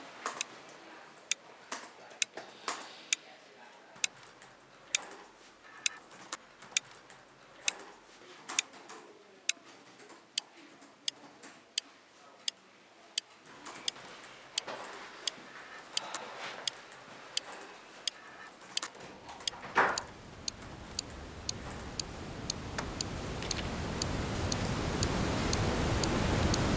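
A wall clock ticking with steady, evenly spaced ticks, under a noise that swells steadily louder over the last several seconds.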